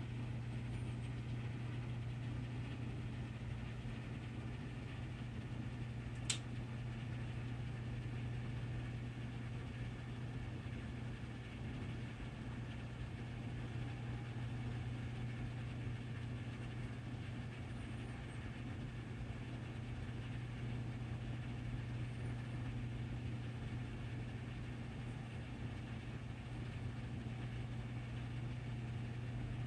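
Steady low room hum of machinery or ventilation, with a single sharp click about six seconds in.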